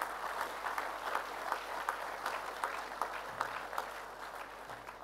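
Audience applauding, a dense patter of many hands clapping that begins to die away near the end.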